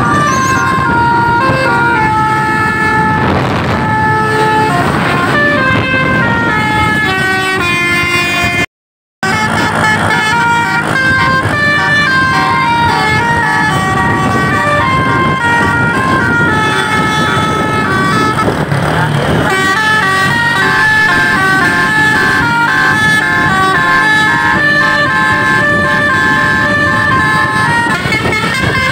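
Multi-tone 'telolet' horn on a tour bus playing a running melody of quick, stepped notes, with traffic passing. It breaks off briefly once, about a third of the way in.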